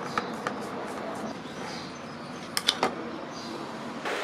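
Light clicks and taps of a screwdriver working screws in the plastic housing of a Sony SRS-XB2 speaker, with a quick cluster of three sharp clicks about two and a half seconds in, over steady background noise.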